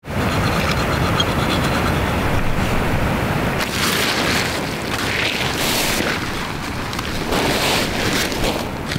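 Wind buffeting the camera microphone: a steady rumbling rush that swells louder several times.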